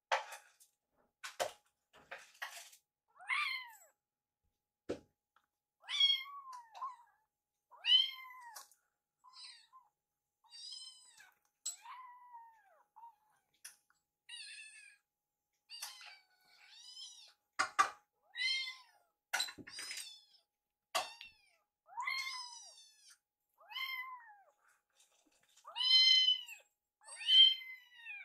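Young kittens meowing over and over, high-pitched arching calls about every second or two, with a few sharp clicks in between.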